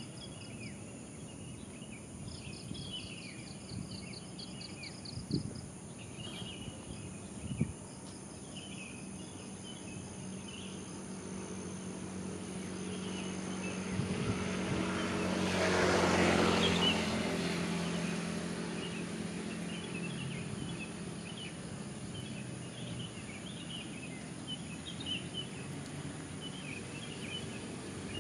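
Birds chirping throughout, with an insect trilling in the first few seconds and two sharp knocks a couple of seconds apart. An engine swells up and passes by, loudest about halfway through, then fades away.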